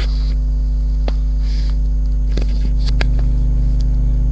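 Loud steady electrical hum with a few faint clicks and a brief soft hiss.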